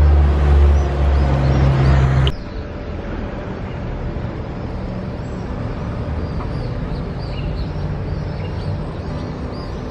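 A low, steady engine hum cuts off abruptly about two seconds in, leaving a quieter background rumble with many small birds chirping.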